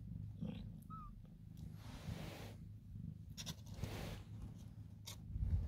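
A kitten's brief, faint mew about a second in, amid soft rustling of the blanket as a hand moves among the kittens.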